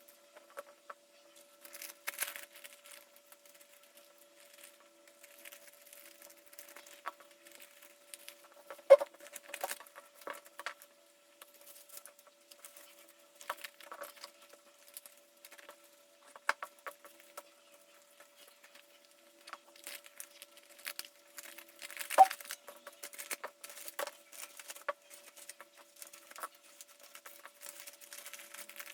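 Hands packing small items, cards and plastic or paper packaging, with light crinkling and scattered taps and clicks. There are two sharper clicks, about nine and twenty-two seconds in, over a faint steady hum.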